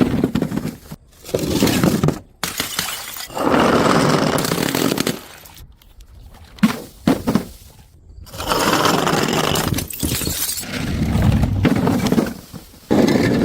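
Glass bottles breaking and shattering, one after another in separate episodes. Several last a couple of seconds each, with a few short sharp knocks near the middle.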